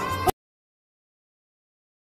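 The last moment of a sung devotional line over music, cut off abruptly about a third of a second in, then dead digital silence.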